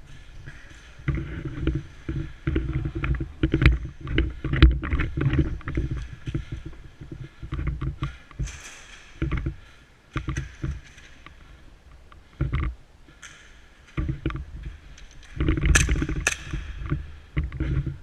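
Rumbling movement and handling noise on a body-worn camera microphone while the player moves about, coming and going in bouts, with several sharp clicks and knocks among it.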